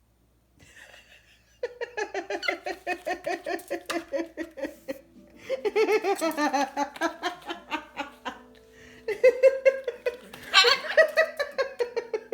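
A woman laughing uncontrollably in three long runs of rapid, rhythmic bursts, each run falling in pitch.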